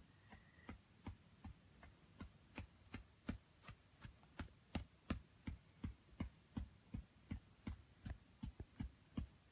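A beagle's tail thumping on soft bedding in a steady, faint rhythm of about two to three soft beats a second, the sign of a content, happy dog.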